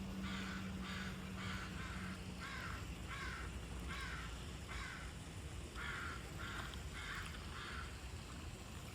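A crow cawing, a quick series of about a dozen short calls about half a second apart, with a brief pause midway.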